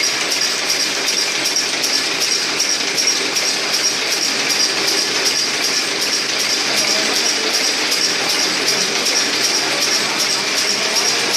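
AGS-100 air gun slug (pellet) making machine running at full speed, its cams, slides, springs and gears clattering in an even rhythm of about four strokes a second, matching its rated output of about 15,000 pellets an hour.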